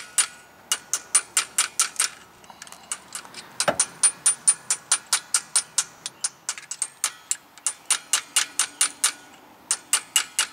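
Hammer tapping a steel punch held against a rusted-in rear wheel bearing, trying to drive it out of its housing: quick, ringing metal-on-metal taps, about four a second. There is a short pause a couple of seconds in and one duller, heavier blow near four seconds in.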